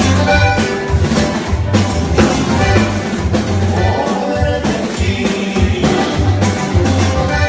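Recorded norteño song playing, with a steady beat of bass and drums.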